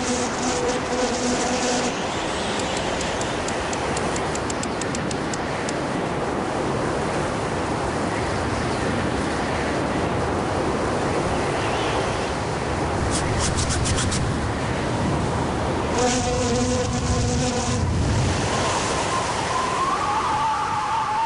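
Steady rushing wind noise. A low pitched hum comes in briefly at the start and again about three-quarters of the way through.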